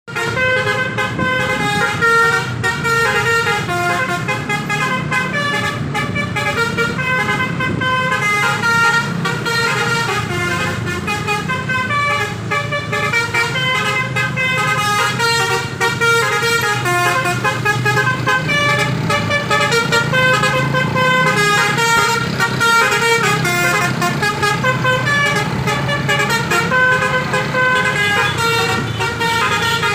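Basuri V3 telolet musical bus horn playing a quick tune of stepped notes without pause, over the low running of the bus engine.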